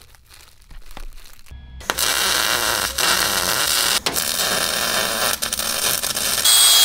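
Faint crinkling at first, then from about two seconds in the steady crackling hiss of a MIG welder's arc as a car's front body tub is welded, with a brief break near the middle. Near the end it grows louder and a steady high whine comes in.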